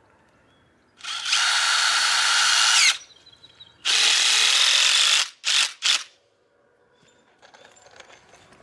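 Cordless drill driving a screw through a wooden rail into an upright pole: a run of about two seconds that slows at the end, a second run of over a second, then two quick short bursts to seat the screw.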